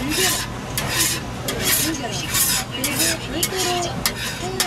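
Metal spatula making repeated scraping strokes on a hot toast griddle, with food sizzling and a few sharp clicks. Faint voices talk in the background.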